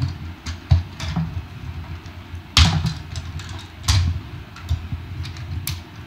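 Hard plastic parts of a Titans Return Powermaster Optimus Prime toy trailer clicking and knocking as they are unfolded by hand, in irregular clacks with handling rustle between them. The sharpest clacks come about two and a half seconds in and again about a second later.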